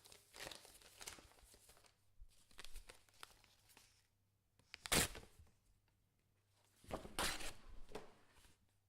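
A sheet of paper being crumpled and torn in separate bursts with short pauses between them. The loudest bursts come about five seconds in and from about seven to eight seconds in.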